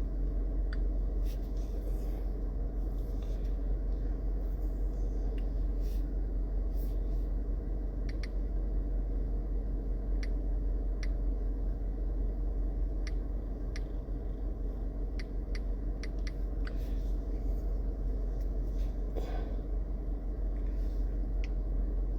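Scattered faint, irregular clicks of typing over a steady low hum.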